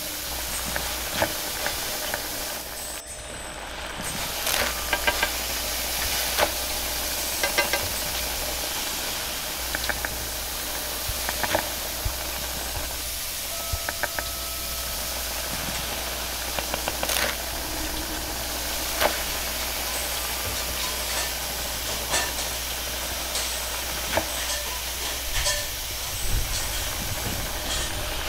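Noodles sizzling in a wok over a gas flame: a steady hiss broken by frequent sharp clanks and scrapes of the metal spatula against the wok.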